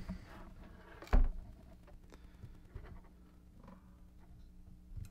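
Handling noise on a tabletop: one heavy thump about a second in, then a few light taps and rustles over a faint steady hum.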